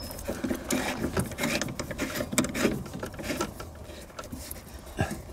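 Hands threading a water supply line's fitting onto an RV ice maker's plastic water inlet valve, with scattered light clicks and rubbing against the surrounding wires and hoses.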